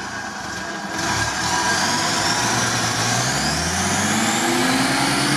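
UAZ off-roader's engine revving under load as it pulls itself through a deep mud rut with one wheel in the air. The engine gets louder about a second in and climbs steadily in pitch over the last couple of seconds.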